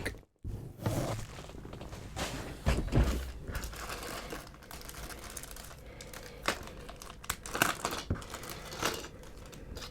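Packaging crinkling and rustling as parts are unwrapped by hand, with a few short clicks and knocks scattered through it.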